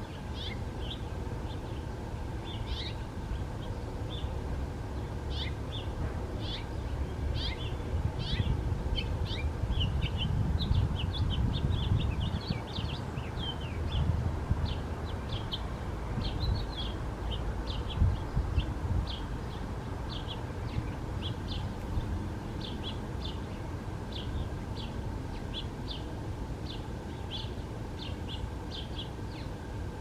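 Small birds chirping, many short high calls a second, over a steady low rumble that swells in the middle, with a single sharp knock a little past halfway.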